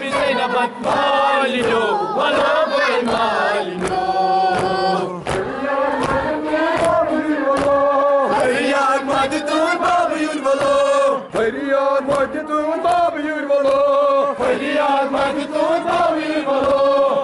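Kashmiri noha: a crowd of men and boys chanting a mourning lament together, led by male voices, with a regular beat of hands striking chests (matam) keeping time.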